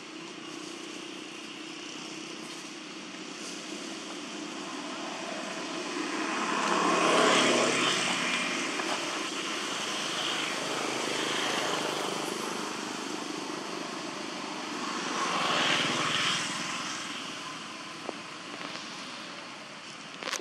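Passing motor vehicles: a steady outdoor hum that swells to its loudest about seven seconds in and again around sixteen seconds, fading away after each.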